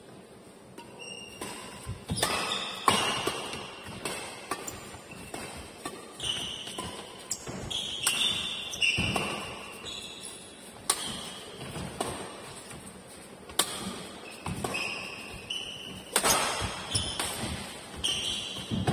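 Badminton doubles rally: sharp racket strikes on the shuttlecock and thuds of footfalls on the court, mixed with short, high squeaks of court shoes as the players push off and stop.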